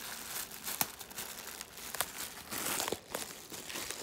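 Plastic packaging on a CD crinkling and crackling as it is handled, with scattered small clicks.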